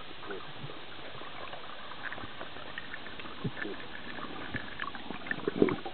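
Underwater ambience picked up by a submerged camera: a steady hiss sprinkled with small clicks and pops, and a louder cluster of crackles a little before the end.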